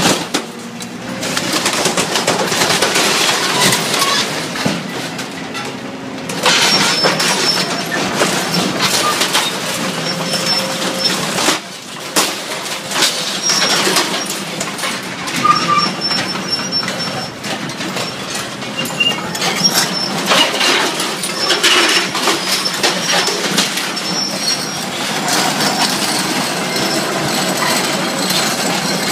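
Demolition excavator with a grapple tearing out a steel electrical panel and its conduit: sheet metal crunching, scraping and clanking, with brief high squeals of bending metal, over the steady running of the Volvo excavator.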